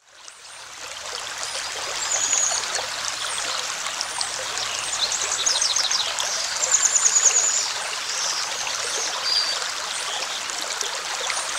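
A flowing stream rushing steadily, fading in over the first second or two, with a few short, high, quickly repeated trills over the water.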